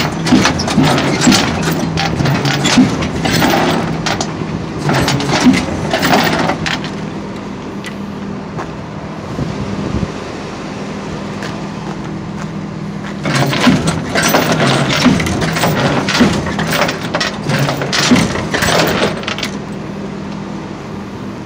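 Flatbed tow truck's engine running steadily while its steel bed is jerked and shaken to make a car that has no key and won't go into neutral slide down the soaped deck. There are two long spells of rattling and clanking, one over the first several seconds and another starting a little past the middle.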